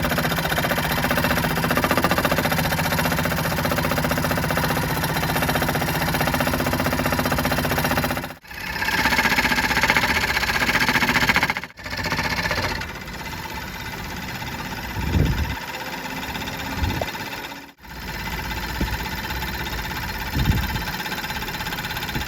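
Vintage Dunlap belt-driven bench jigsaw running steadily, its blade reciprocating through thick wood. It gets louder and brighter for a few seconds in the middle, with a few dull thumps later, and cuts out abruptly three times.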